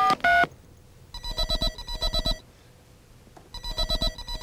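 The last two keypresses of a telephone being dialled, two-tone beeps, then an electronic telephone ring: two pairs of short warbling bursts with a pause between.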